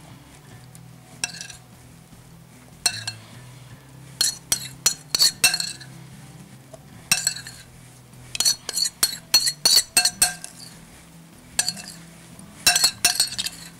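Metal spoon clinking and scraping against glassware while thick marinade is scooped from a glass bowl and spread over a fish in a glass baking dish. Sharp ringing clinks come in irregular clusters, every second or two.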